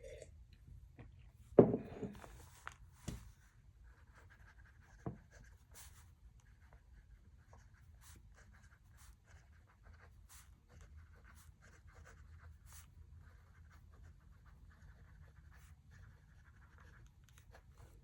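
Pen or pencil writing on paper, a faint scratching with small ticks, broken by a loud knock about one and a half seconds in and two softer knocks soon after.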